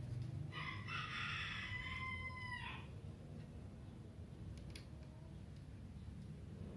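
A rooster crowing once, a single call of about two seconds that drops in pitch at the end, over a low steady background rumble.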